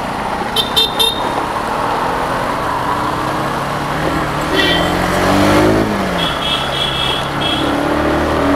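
Road and wind noise on a moving scooter rider's microphone amid traffic, with short high vehicle-horn toots about a second in and again several times in the second half. Around the middle a vehicle engine note falls in pitch.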